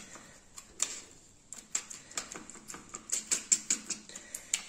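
A metal utensil whisking eggs with chopped onion, tomato and green chilli in a plastic bowl, clicking against the bowl with each stroke. The strokes come quickly and evenly, about five a second, from about a second and a half in.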